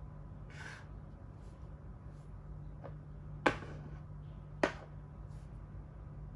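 Makruk (Thai chess) pieces knocked onto the board during a capture, as a red piece takes a white one: two sharp clicks about a second apart, after a fainter brushing sound near the start.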